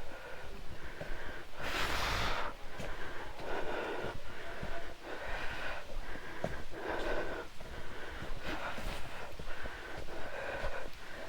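A person breathing heavily and hard from climbing a steep mountain trail, loud breaths in and out close to the microphone about every one and a half to two seconds, the strongest about two seconds in.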